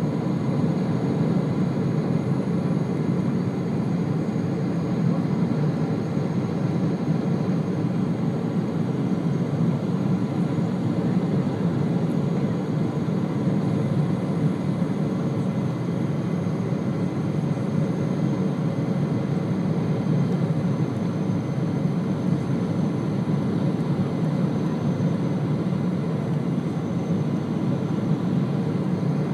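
Steady jet cabin noise of an Emirates Boeing 777 on approach, heard from a window seat beside the engine: an even low rush of engine and airflow with faint steady tones above it, unchanging throughout.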